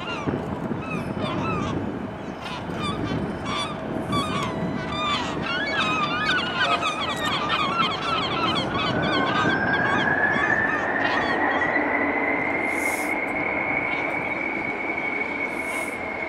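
A flock of gulls calling over the river, many short squealing calls overlapping, thickest in the first half. From about eight seconds in, a long whistle-like tone slowly rises in pitch and then holds steady, over a constant background rumble and hiss.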